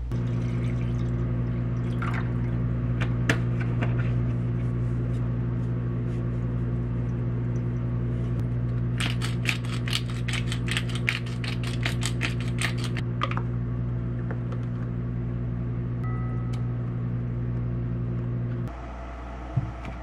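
Hand pepper grinder being twisted over a pot of broth, a rapid run of grinding crackles lasting about four seconds in the middle. It plays over a steady low electric hum that stops shortly before the end, with a few sharp clicks of the pot lid being handled near the start.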